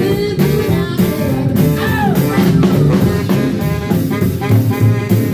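Live rock and roll band playing: saxophone over piano, upright bass and drum kit, with a steady beat.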